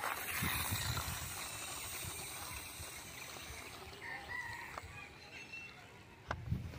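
A rooster crowing over outdoor background noise, loudest in the first few seconds and then fading, with low handling rumbles as the plastic toy bus is turned in the hand.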